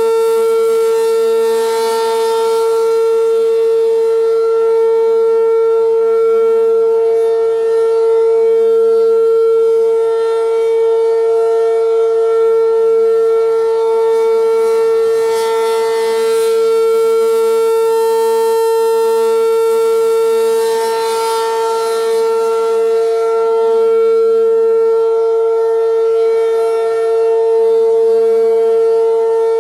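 ACA P-15 rotating outdoor warning siren sounding a steady tone, the tornado drill alert signal. It holds one pitch and grows louder and softer every six or seven seconds as the horn turns past.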